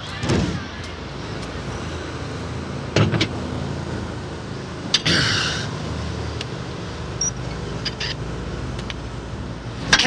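Steady low rumble of street traffic, with a few sharp knocks spaced through it; about five seconds in, one knock is followed by a brief higher-pitched rattle.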